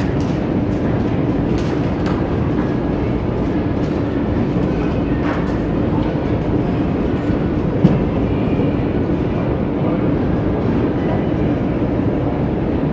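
Steady low rumble with a constant hum underneath, indoor background noise, and a single short click about eight seconds in.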